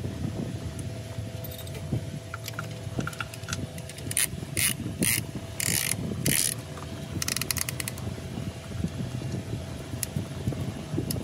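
Metal ratchet clicking in several short rasping strokes about halfway through, then a quick run of clicks, over a steady low hum.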